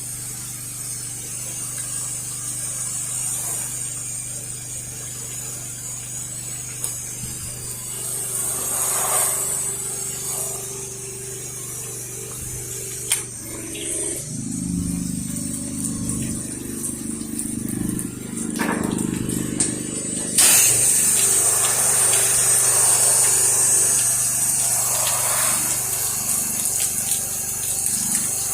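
Pressure washer running steadily, with the hiss of water spraying from the wand; the spray gets suddenly louder about two-thirds of the way through.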